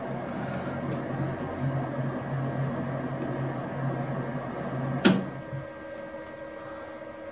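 Metal lathe running steadily with a low hum and a faint high whine, turning a worm shaft between chuck and tailstock during a very light cut on one flank of the worm thread. About five seconds in a single sharp clunk as the lathe is stopped, and only a fainter hum is left.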